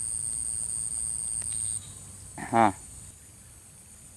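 Insects droning with a steady, high thin tone that drops sharply in level about two seconds in. A short voiced sound from a person comes about halfway through.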